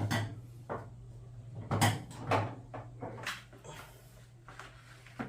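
A series of about six knocks and clunks of hard objects being handled, over a low steady hum.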